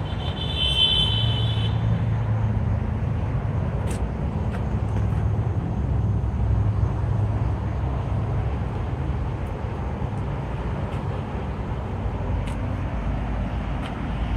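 Steady low vehicle rumble, with a short high-pitched tone about half a second in.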